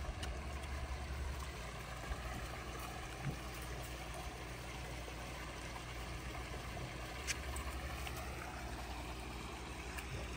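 Small waterfall trickling and splashing into a rock-lined garden pond, over a low steady rumble.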